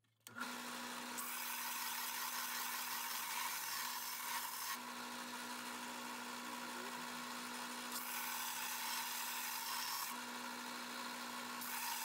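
Belt sander running with a steady motor hum while a brass hex nut is pressed against the moving belt three times. Each contact brings a louder, hissing grind that eases when the nut is lifted off. The sanding is putting a bevel back on the face of the nut.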